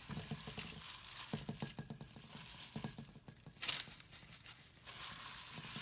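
Parchment paper crinkling, with scattered small clicks and taps as marinated chicken pieces are handled in a pan; the loudest rustle comes a little past halfway.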